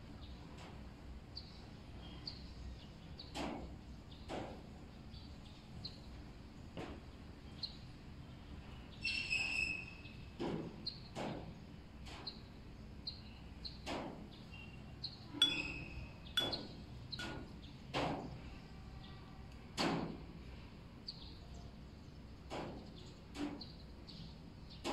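Scattered light clicks and knocks from painting on porcelain: a brush and its bamboo handle tapping against ceramic ink dishes and the glazed tile, about once or twice a second over a low room hiss. A few short high chirps come about a third of the way in and again just past the middle.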